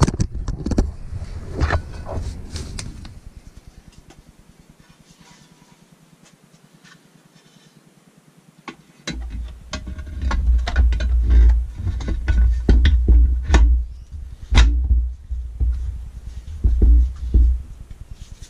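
Clicks and light metal knocks as the aluminium half of a Honda 5-speed gearbox case is handled and lowered onto the other half over the gear sets. After about nine seconds a low rumble of handling comes in under more frequent knocks.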